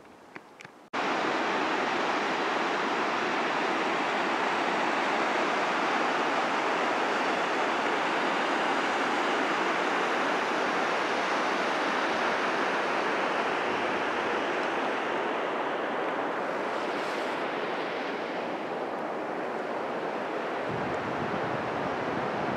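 A steady rushing hiss cuts in abruptly about a second in and runs on evenly, after a moment of quiet with a few faint clicks.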